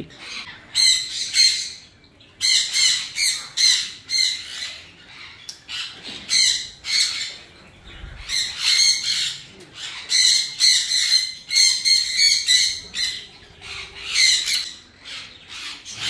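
Parrots giving many short, harsh squawks and chirps, several a second in runs broken by brief pauses.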